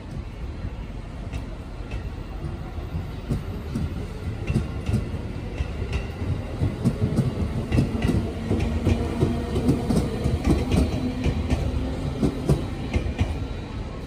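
JR 311 series electric train pulling out of the station: steady rumble with wheels clacking over rail joints, louder and quicker as the cars roll past.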